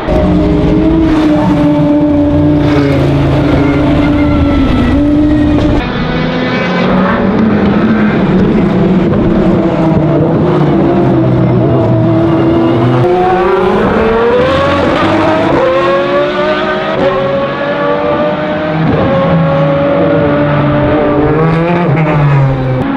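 Lola-Aston Martin B09/60's naturally aspirated 60° V12 running at racing speed, its note rising and falling with throttle and gear changes. The pitch climbs steeply about halfway through as the car accelerates.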